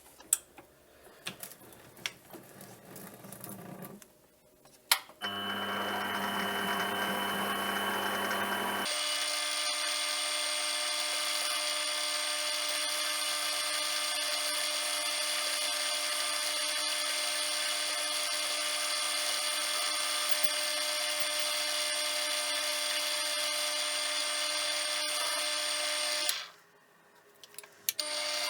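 Small metal lathe motor running with a steady whine, after a few clicks and knocks of handling. It starts about five seconds in, steps up to a higher pitch a few seconds later, cuts off near the end and starts again.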